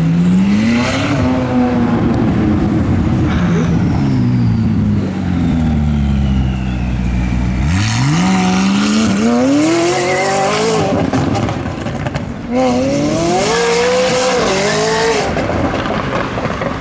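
McLaren supercar's twin-turbo V8 through a catless exhaust, running low at first and then revving up hard twice as the car accelerates away, the pitch climbing steeply each time.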